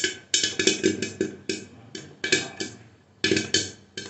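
Popcorn kernels popping inside a closed aluminium pressure cooker: an irregular run of sharp pops knocking against the lid, coming in quick clusters with short gaps as the popping is in full swing.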